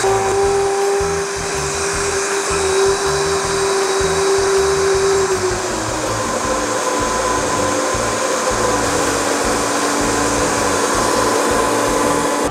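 Countertop blender running steadily at speed, whipping ricotta cheese, sugar and cream. The motor's hum drops in pitch about halfway through, and it stops at the very end.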